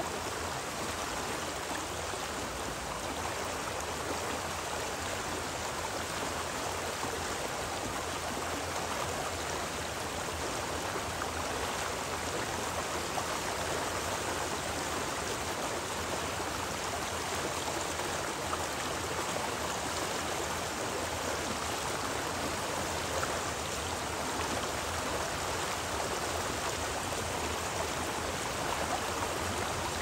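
Mountain stream running: a steady, even rush of flowing water with no breaks.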